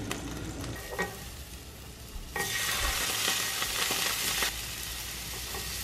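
Halloumi slices searing on a flat-top griddle, sizzling. The sizzle jumps louder a little over two seconds in and eases back near the end, with a couple of light clicks in the first second.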